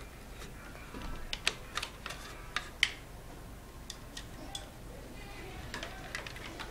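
Small sharp clicks and handling noise of speaker wire being worked into a subwoofer's spring-loaded push terminal and moved about on a tabletop: a quick run of clicks in the first half, a few fainter ones later.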